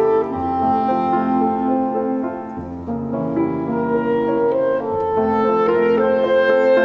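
Clarinet and grand piano playing classical chamber music together, the piano sounding chords under the clarinet's melody. The clarinet holds one long note from about five seconds in.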